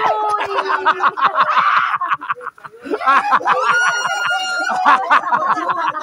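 Several people laughing hard in quick bursts, with one long, high-pitched shriek held for about a second about four seconds in.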